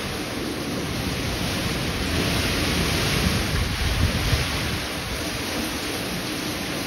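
Heavy hurricane rain pouring steadily, with a low, uneven rumble underneath that swells slightly a few seconds in.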